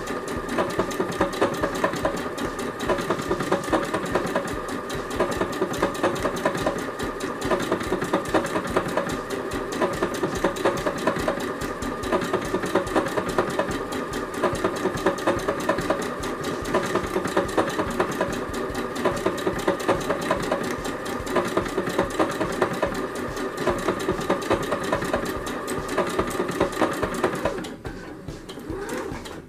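Singer Confidence electronic sewing machine stitching a decorative stitch at a steady speed, a rapid, even patter of needle strokes over the motor's hum. It stops about two seconds before the end.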